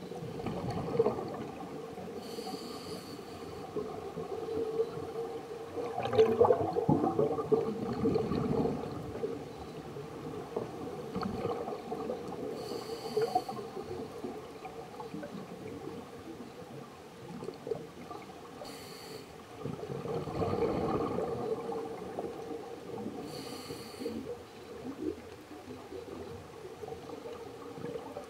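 Scuba diver breathing through a regulator underwater: a short hiss on each of several inhalations, and a rushing burble of exhaust bubbles on the longer exhalations, over a steady low hum.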